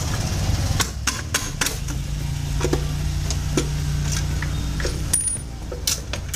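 Scattered metallic clinks and knocks as the CVT cover of a Honda Vario 125 scooter is worked loose by hand and pulled off, over a steady low hum.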